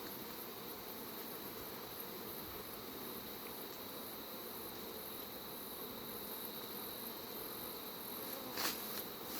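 Steady buzzing of many honeybees around an opened hive, disturbed as they are brushed off a honey frame. A short knock sounds near the end.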